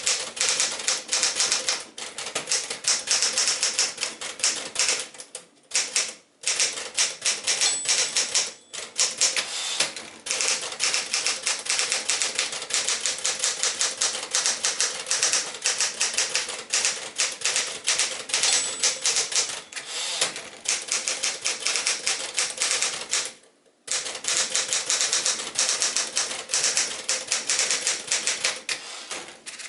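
1964 Smith-Corona Sterling (5AX series) manual portable typewriter being typed on: rapid clacking keystrokes with a few short pauses, and a brief high ring twice.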